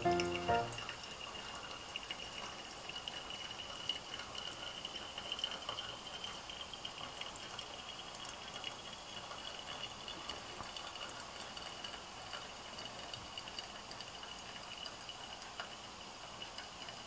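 Hot water poured in a thin stream from a drip kettle onto coffee grounds in a paper-filter pour-over dripper: a faint, steady trickle, over a steady high tone, with a few faint clicks.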